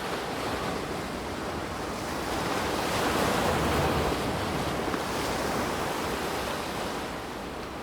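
Brook water running over stones, a steady rush that swells a little louder for a couple of seconds mid-way.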